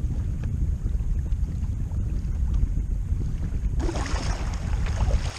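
Wind buffeting the camera microphone on a kayak under way, a steady low rumble, with water splashing along the hull. About four seconds in, a brighter hiss of splashing water comes in.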